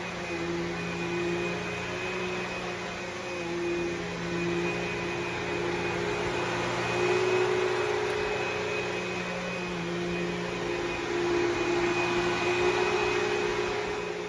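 Vacuum cleaner running steadily, a motor hum and whine over airflow noise, its pitch wavering slightly and its loudness swelling and dipping.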